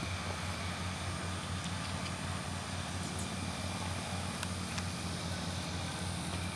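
A steady low engine drone at an even pitch.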